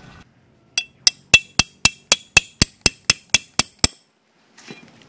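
Hammer driving a metal tent stake into the ground: a quick run of about thirteen sharp metallic clinks, about four a second.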